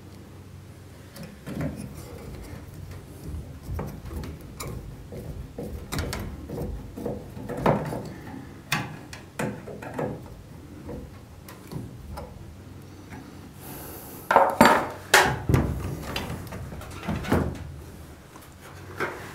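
Stainless steel screws being turned by hand with a screwdriver into the aluminium greenhouse frame and the roof-vent opener's bracket: scattered small clicks, scrapes and knocks of metal handling, with a louder cluster of knocks about three-quarters of the way through.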